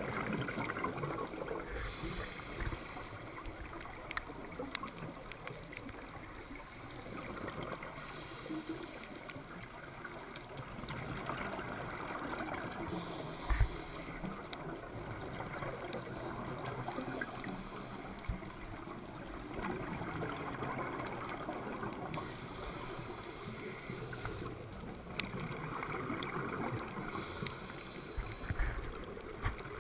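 Underwater sound of a scuba diver breathing through a regulator: a steady rushing hiss, with bursts of exhaled bubbles about every five to six seconds and scattered sharp clicks.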